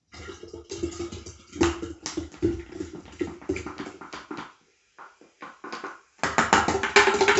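A can of Burn Classic energy drink poured into a glass pitcher of tonic water: a gurgling, splashing pour with a steady ringing tone from the filling pitcher. It stops about four and a half seconds in and starts again, louder, near the end.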